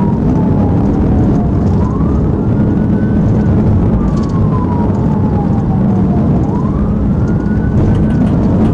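Police car siren on a slow wail, rising and falling twice, heard from inside the pursuing patrol car over loud, steady engine and road noise.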